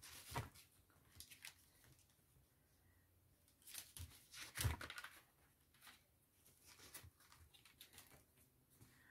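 Faint, scattered rustling and soft taps of paper cutouts being handled and set down, with a small cluster of them about four to five seconds in.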